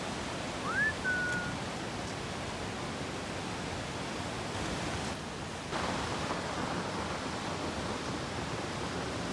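Steady rush of the Merced River's whitewater cascades and Vernal Fall, an even noise of falling water. About a second in, a short whistle rises and then holds briefly. A little before the six-second mark the rush gets a bit louder and brighter.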